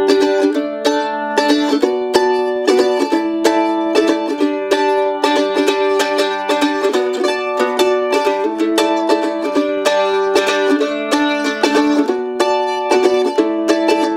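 Acoustic mandolin played solo with a flatpick: rapid picked strokes working through a chord progression, with the chords changing every second or so.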